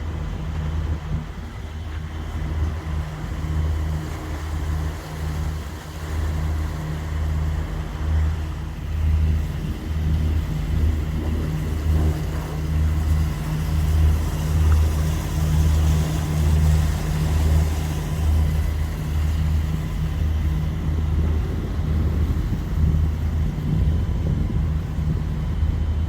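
Lagoon 46 catamaran's inboard diesel engine running as the boat motors slowly in to anchor: a steady low drone that throbs unevenly.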